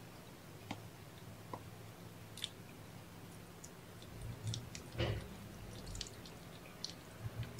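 Small wet clicks and smacks of cats' mouths, a mother cat and her kittens licking and suckling, with one louder smack about five seconds in, over a steady low room hum.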